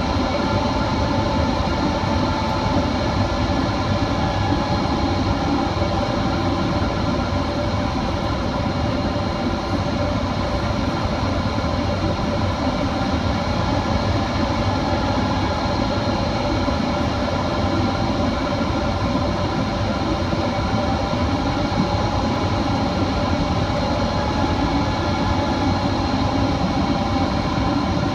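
Jet airliner on final approach heard from inside the cabin: a steady roar of engines and rushing air, with several steady whining tones, one of them drifting slightly in pitch.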